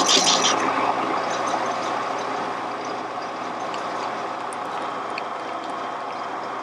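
Metal lathe facing the end of an engine cam bearing spinning in the chuck: the cutting tool's rasp fades out in about the first second, then the lathe runs on steadily without cutting, with a few light ticks.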